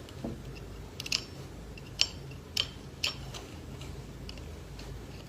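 Sharp knife paring crushed wood off an axe handle just below the head: a handful of short, crisp cuts, the sharpest about two seconds in, then fainter ones.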